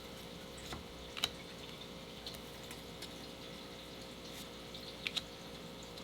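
A few light, sharp clicks and taps from trading cards being handled and sorted by hand, over a steady low electrical hum.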